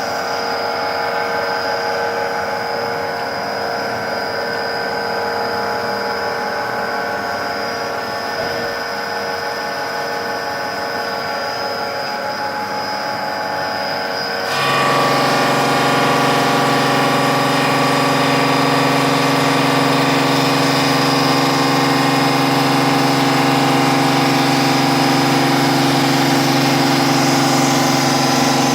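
PLC-600 stone-cutting machine for granite and marble slabs running with a steady mechanical hum. About halfway through, the sound steps up abruptly as a second, louder motor comes on and adds a deeper steady hum.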